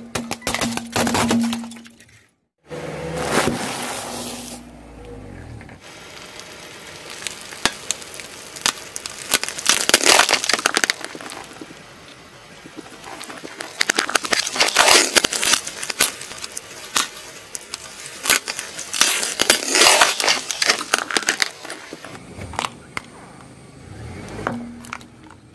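Car tyre crushing plastic toys and candy: repeated sharp cracking, snapping and crunching in several bursts, broken by a moment of silence about two and a half seconds in.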